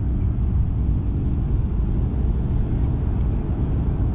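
Steady low rumble of wind on the microphone, an even dense noise with no distinct sounds in it.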